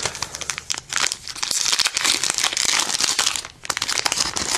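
Foil Yu-Gi-Oh! booster pack wrapper being crinkled and torn open by hand: a dense run of crackles that eases briefly about three and a half seconds in, then picks up again.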